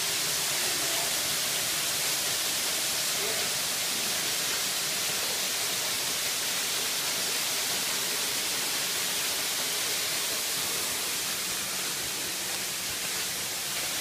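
Waterfall: thin streams of water falling down a rock face and splashing below, a steady, even rush of water.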